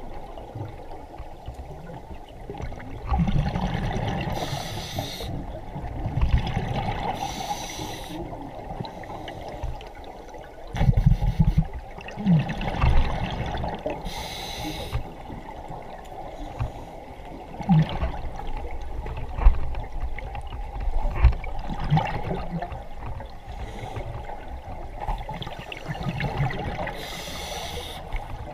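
Scuba regulator breathing heard underwater: bursts of exhaust bubbles several seconds apart over a muffled low rumble, with occasional low knocks.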